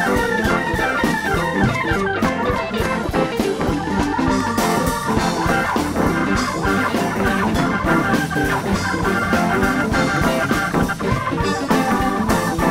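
Live blues-rock band playing an instrumental passage, with Hammond organ to the fore over drums, bass and electric guitar.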